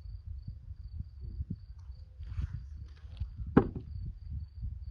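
Insects chirping in a steady pulse, about two chirps a second, over low rumbling and soft thumps of handling in the soil, with one sharp knock about three and a half seconds in, the loudest sound.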